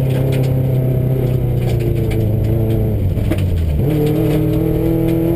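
Subaru rally car's flat-four engine heard from inside the cabin at stage speed. Its pitch falls for about four seconds, then jumps up and climbs again, over scattered clicks of gravel under the car.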